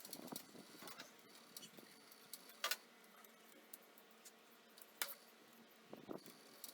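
Near silence with a few faint, sharp clicks and taps, the clearest about two and a half seconds and five seconds in.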